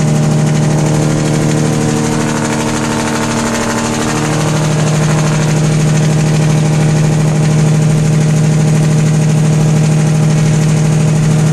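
Semi truck's diesel engine running steadily at highway speed, heard inside the cab as a constant low hum; about four seconds in the note changes and grows a little louder.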